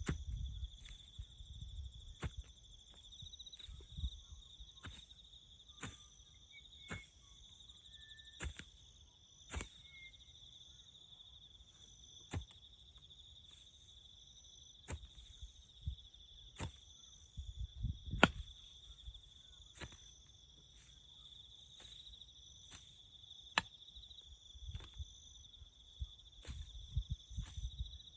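Crickets trilling steadily in a high, unbroken chorus, crossed by sharp knocks or clicks roughly once a second, with a few low rumbles.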